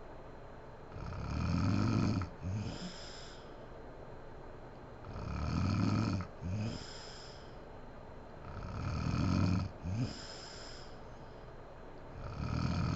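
A woman snoring in her sleep, one deep snore about every four seconds. Each snore is followed by a short second catch and a breathy exhale. Three full cycles are heard, and a fourth snore begins near the end.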